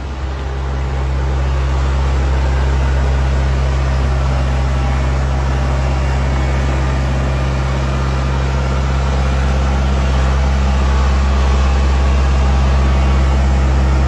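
Tractor engine running steadily with a deep hum, getting louder over the first second or two and then holding even.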